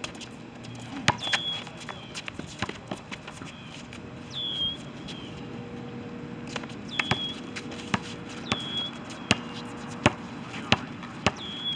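Basketball being dribbled on an outdoor asphalt court: sharp, irregular bounces as players move the ball, with a few harder thuds.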